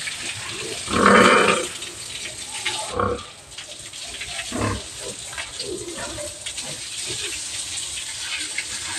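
Water from a hose spraying and splashing onto a pig in its concrete pen, with a steady hiss. A pig calls out loudly about a second in, with shorter pig calls about three and four and a half seconds in.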